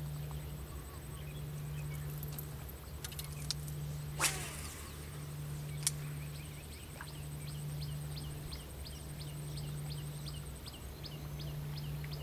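Outdoor ambience with a steady low hum. From about halfway through, a bird repeats a short descending chirp about two to three times a second. A sharp knock comes about four seconds in, and a lighter click shortly after.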